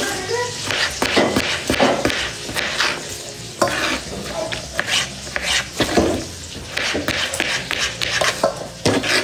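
Kitchen knife chopping a cucumber on a cutting board: irregular knocks of the blade striking the board, several a second.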